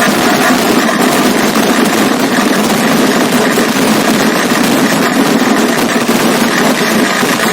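Vedikettu fireworks going off in an unbroken, dense barrage: countless rapid firecracker bangs merging into one steady, loud rattling roar.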